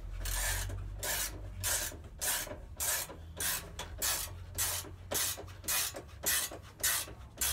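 Rasping strokes repeated evenly about twice a second from a hand tool worked back and forth, most likely a ratchet spanner tightening the new aftermarket exhaust can's mounting bolt.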